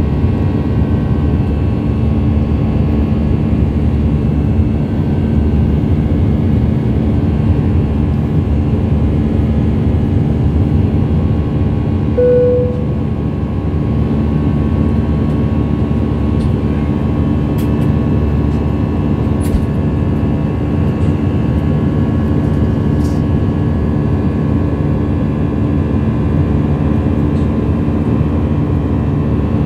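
Steady jet cabin noise of an Airbus A319-112 in its climb, with its CFM56 turbofans' low hum and the rush of air heard from inside the cabin. A short tone sounds about twelve seconds in, after which the noise drops a little.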